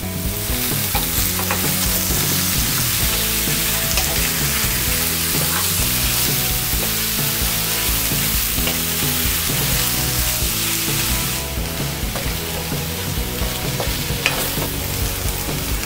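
Julienned onion, carrot, potato and diced chicken breast sizzling in a hot oiled pan while being stir-fried, with the wooden spatula stirring and scraping through them. The sizzle grows a little stronger about two-thirds of the way in.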